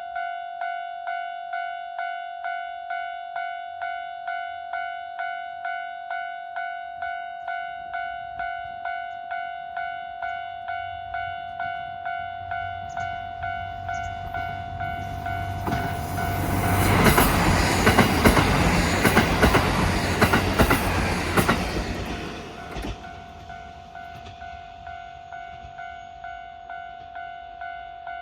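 Japanese level-crossing warning bell ringing steadily at about two strokes a second. A diesel train rumbles and clatters over the crossing, building from about midway, loudest for several seconds, then fading while the bell keeps ringing.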